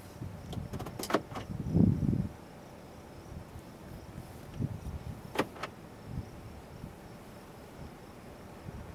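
Wild horse grazing close by, tearing grass in sharp crisp rips, a pair about a second in and another pair about five and a half seconds in, among soft low thumps, with a louder low rumble around two seconds in. Insects buzz faintly and steadily underneath.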